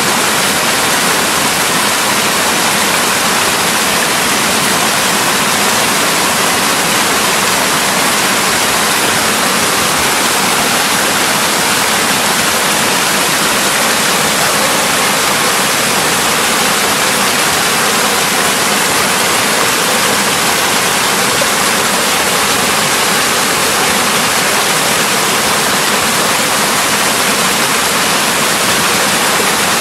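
Mountain valley stream with water rushing steadily: a loud, even hiss that holds without change.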